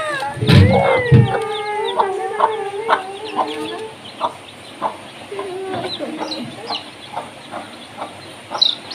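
Mother hen with newly hatched chicks calling: one long drawn-out call, then a run of short clucks while a chick is lifted from her box. Low handling thumps come about a second in, and a chick peeps with high rising chirps near the end.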